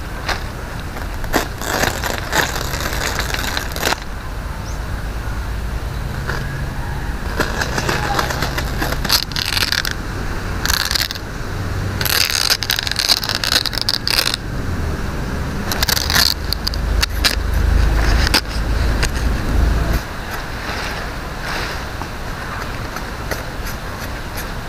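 Coconut palm leaflets rustling and scraping in irregular bursts as they are split and stripped by hand, over a steady low rumble.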